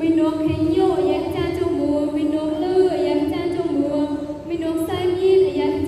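A woman's voice reciting in a chanted, sing-song intonation, with long held notes and short glides between them, through a handheld microphone.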